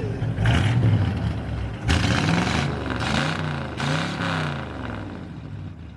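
A loud car engine being revved: two sharp blips of the throttle, then the pitch rises and falls several times before easing back toward idle near the end.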